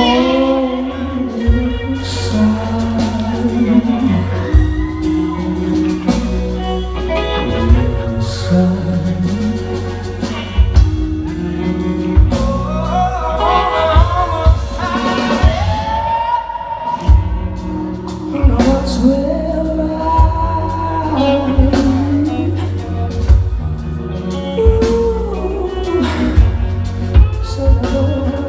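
Live rock band performing: a male lead vocalist sings a wavering melody over electric guitar, bass and a drum kit. Heard from the audience in a hall, with a heavy, boomy low end.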